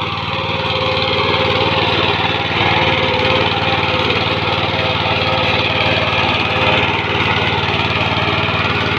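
Engine of a rotary tiller running steadily under load while tilling soil.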